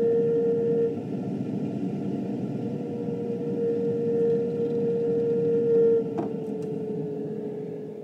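Evaporator fan motor of a GE side-by-side refrigerator whining constantly, the whine swelling and fading: loud at the start, dropping about a second in, rising again for a few seconds, then fading near the end. The owner takes it for a failing fan motor.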